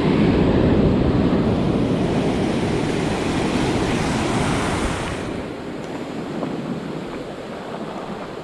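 Ocean surf washing in, loudest for the first five seconds or so and then easing off, with wind buffeting the microphone.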